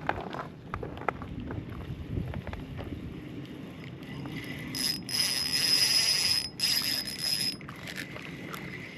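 Scattered small clicks, then from about halfway a Shimano Sienna 1000 spinning reel being cranked for about three seconds as a loud whir with a steady high whine, stopping briefly once.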